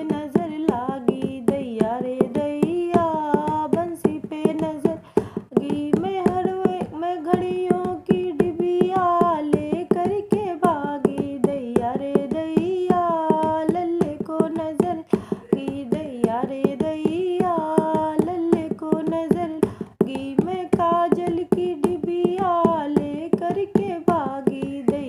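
A woman singing a sohar, a North Indian folk song for a birth, over a fast, steady dholak beat.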